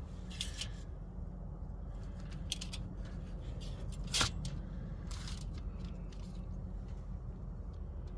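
A knife cutting into a cooked pork steak: scattered small clicks and scrapes, with one sharper click about four seconds in, over a steady low rumble.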